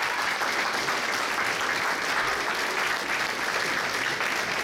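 Banquet audience applauding, a steady, dense round of clapping.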